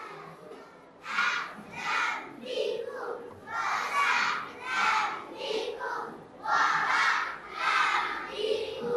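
A large crowd of children shouting together in repeated loud bursts, roughly one a second, starting about a second in.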